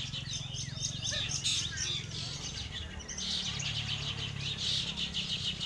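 Many caged long-tailed shrikes (cendet) singing at once, with dense, fast overlapping chirps and trills, over a low steady hum.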